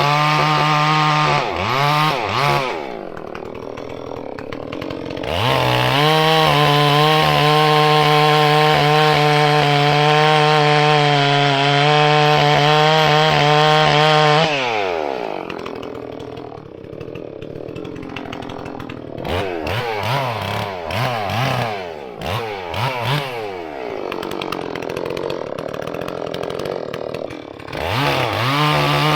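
Holzfforma G466 clone chainsaw's two-stroke engine running at high throttle, dropping back toward idle about three seconds in, then running high and steady for about eight seconds. It falls away again, rises and falls unevenly several times, and is back at full throttle near the end.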